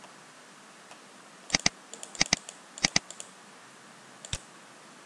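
Computer mouse button clicks, each a quick press-and-release pair: three pairs in quick succession between about a second and a half and three seconds in, then one more click past four seconds, over faint room hiss.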